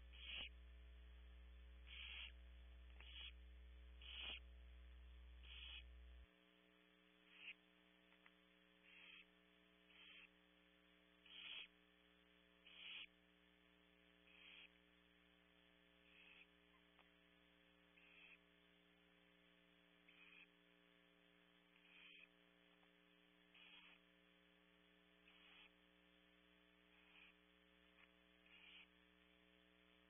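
Barn owl nestlings' begging calls: short hissing snores repeated about every one and a half seconds, faint under a steady electrical hum. A deeper part of the hum cuts off about six seconds in.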